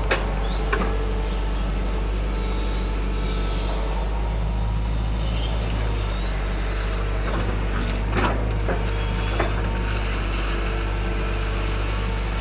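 Hydraulic excavator's diesel engine running steadily, with a few sharp knocks now and then, the loudest about eight seconds in.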